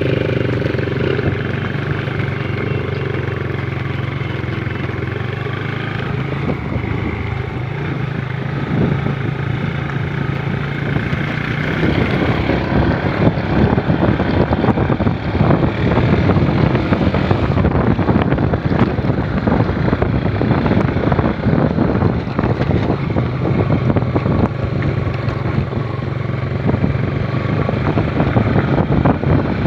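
Motorcycle engine running steadily while riding a rough gravel track, with wind buffeting the microphone. About twelve seconds in it gets louder and rougher, a dense clatter of rattles and knocks from the bike bouncing over loose stones.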